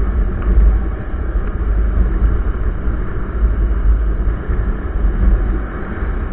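Steady wind buffeting on the microphone of a camera mounted on a motorcycle riding at about 55 km/h, with the motorcycle's running and road noise underneath.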